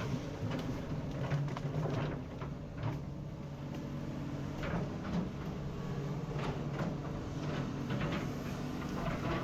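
Excavator's diesel engine running steadily, with frequent short knocks and scrapes from the bucket and arm at work.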